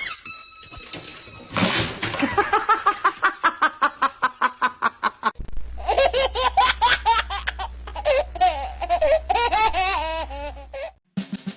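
Laughter in quick rhythmic bursts. After a cut about five seconds in, a second, longer bout of high, wavering laughter follows.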